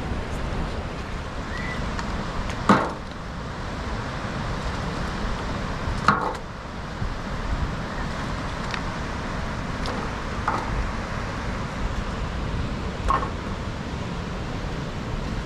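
Steady rushing of a river, with a few sharp knocks spread through it, like sticks of wood striking.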